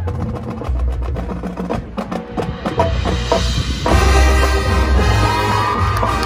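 Marching band music: percussion plays a sharp, clicking rhythm over low drums, then the full band comes in loudly about four seconds in with held chords.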